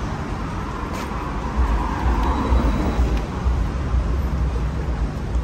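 City street ambience: road traffic running steadily, with a heavier low rumble setting in about a second and a half in.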